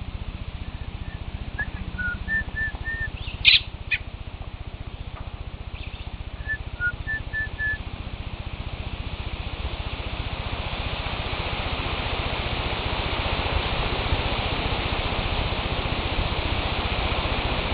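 A person whistles a few short notes on one pitch, and a young robin answers with two sharp chirps; the whistled notes come again a few seconds later. A steady hiss grows louder through the second half.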